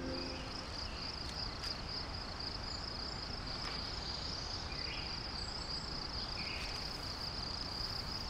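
Crickets chirring in a steady, high, pulsing trill, with a few faint short chirps over it.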